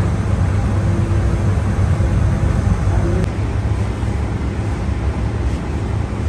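Steady low rumble and hum of bakery machinery running, with an even hiss above it.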